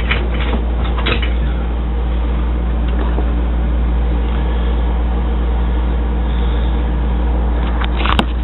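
A steady low hum with hiss above it, with a few light clicks about a second in and a sharper knock near the end.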